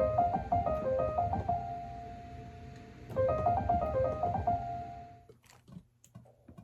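Piano-sounding keyboard playing a short, quick melodic phrase that ends on a held note, then playing the same phrase again; it dies away near the end, leaving a few faint clicks.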